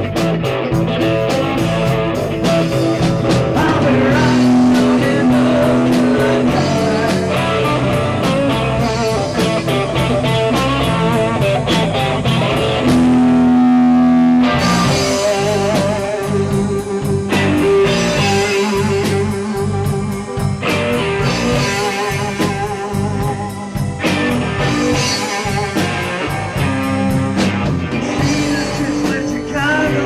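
Live rock-blues band playing: electric guitar over keyboard, bass guitar and drum kit. A long held note sounds twice, the second about halfway through as the drums briefly drop out.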